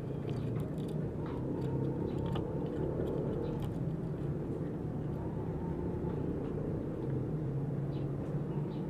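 Steady low mechanical hum, like an engine running, with a few faint scattered ticks.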